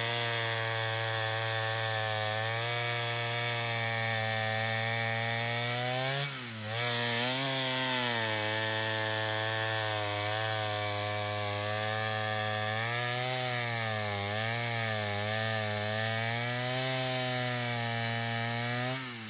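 An engine-powered saw running hard while cutting wood, with a steady motor note. Its pitch sags and recovers sharply about six seconds in, and wavers again as it works through the cut.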